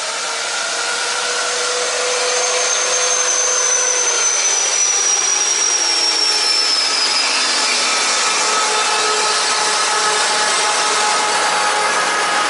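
A train running close past the platform: a loud, steady rushing noise with whining tones that slowly fall in pitch, the highest one fading out about seven seconds in.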